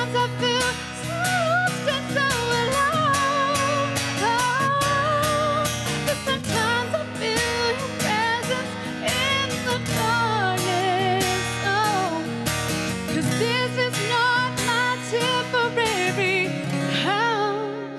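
A woman singing a slow Christian song live, holding notes with vibrato over guitar accompaniment.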